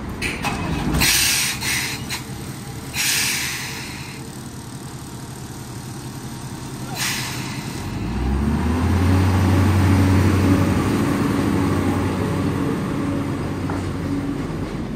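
Air hissing out of a vehicle's air-brake system in three short bursts. About eight seconds in, a motor starts up with a rising low hum, then runs steadily.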